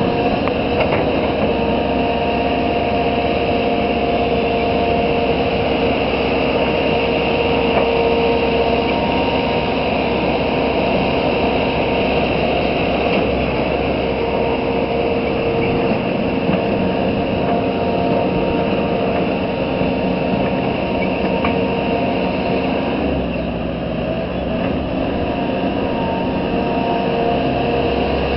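Hitachi Zaxis 160LC excavator's diesel engine running steadily under work, a continuous drone with a higher whine over it, levelling soil. The note changes about three-quarters of the way through as the upper whine drops away.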